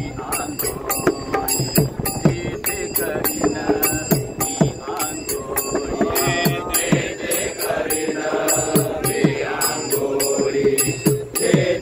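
Marathi devotional abhang sung by a male lead voice over a steady beat of small brass hand cymbals (taal) and low struck strokes. More voices join in the chant about halfway through.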